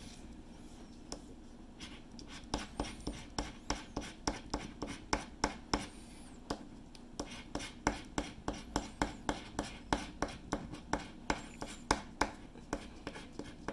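A coin scraping the scratch-off coating of a lottery ticket in short, repeated strokes, about two to three a second, sparse for the first couple of seconds and then steady.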